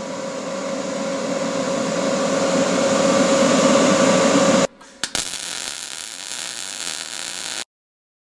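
Steady mechanical hum with a constant tone, slowly growing louder, that cuts off suddenly about four and a half seconds in. A click follows, then a softer even hiss that stops abruptly near the end.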